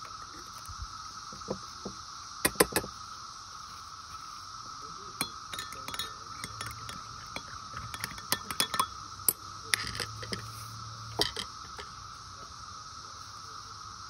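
A metal spoon stirring in a glass measuring cup, clinking against the glass in scattered runs of clinks, thickest in the middle, over a steady background drone of cicadas.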